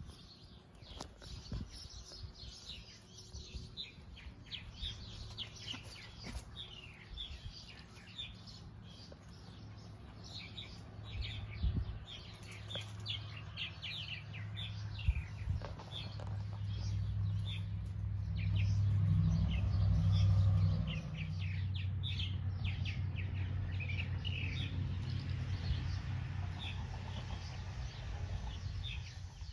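Outdoor birds chirping in many short, quick calls throughout. A low, steady mechanical drone comes in partway through and is loudest about two-thirds of the way in.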